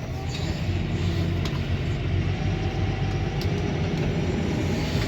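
A tractor's engine running steadily, a low, even drone with a few faint clicks over it.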